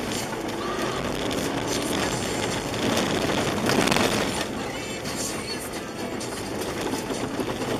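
Skoda Yeti 1.8 car driving on a snowy, icy track, heard from inside the cabin: engine and tyre noise swell as it speeds up to a peak about three to four seconds in, then ease as it slows.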